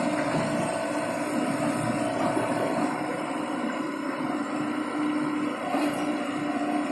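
Komatsu PC78 hydraulic excavator running steadily while its arm and bucket are operated, with an even engine tone.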